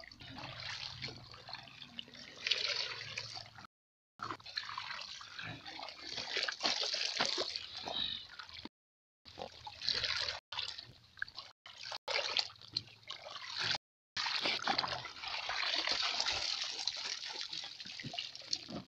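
Pond water splashing and dripping as floating azolla is scooped out with a basin and left to drain, with small clicks and knocks from handling. The sound cuts out completely several times for a moment.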